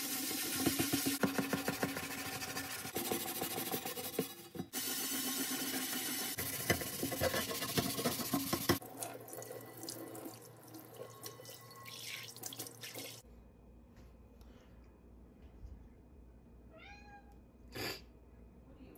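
Kitchen tap running into a stainless steel sink while a cast iron skillet is scrubbed under it with steel wool, a rough scratching over the splashing water. The water stops about two-thirds of the way through. Near the end a short squeak with falling pitch is heard, then a single knock.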